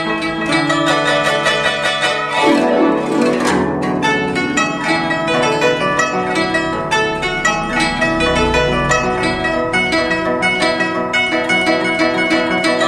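Guzheng (Chinese zither) playing fast plucked notes. Between about two and a half and four seconds in, a sweeping glissando runs across the strings.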